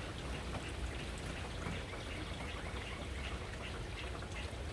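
Light rain falling steadily, with scattered single drops dripping close by.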